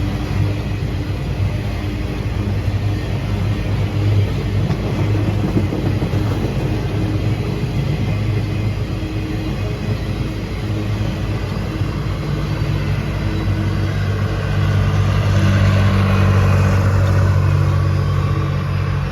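Diesel locomotive engines running with a steady low rumble, growing louder about three-quarters of the way through.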